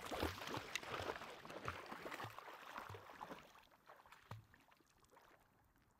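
Faint splashing and sloshing of pond water as a puppy wades and paddles out, dying away about halfway through into near silence.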